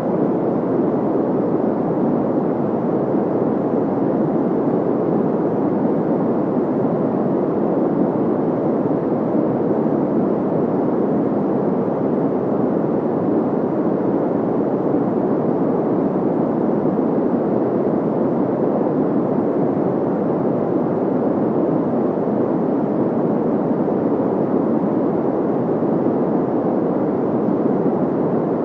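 Steady synthetic white noise: a constant, even rushing hiss, weighted toward the lower, deeper range, with no change at all.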